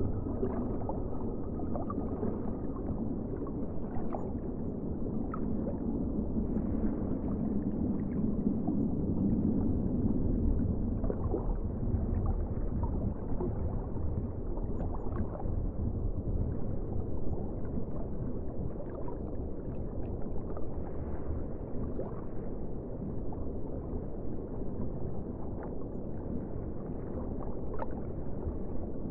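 Underwater ambience: a steady, muffled low rumble of water with faint scattered clicks and crackles.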